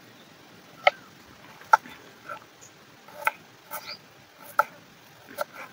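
Kitchen knife cutting through tomato and onion and striking a wooden cutting board: short, sharp knocks at an irregular pace, roughly one a second.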